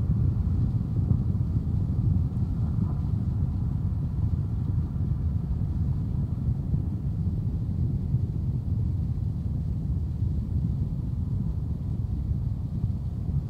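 Concrete mixer truck's diesel engine running, a steady low rumble with no distinct knocks or bangs.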